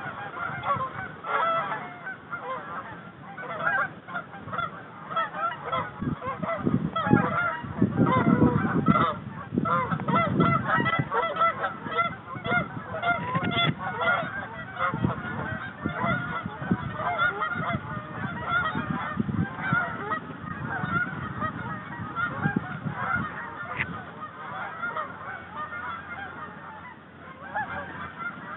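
A flock of Canada geese honking and calling over and over, many birds at once, loudest and busiest a few seconds in and thinning a little towards the end.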